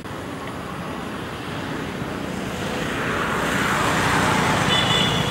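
Road traffic passing: a motorbike's engine and tyre noise growing louder as it approaches, loudest about four seconds in.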